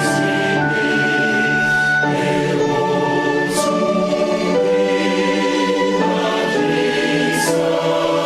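Choir singing in held chords that change every second or two.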